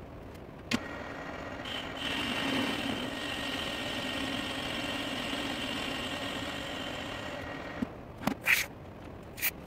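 Metal lathe switched on about a second in, running steadily with an aluminium engine crankcase spinning in its chuck, then switched off near the end, followed by a few short metallic knocks.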